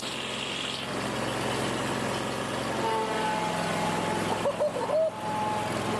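Old Cub Cadet lawn tractor engine running steadily after a choked start, with a few short whistling chirps overhead.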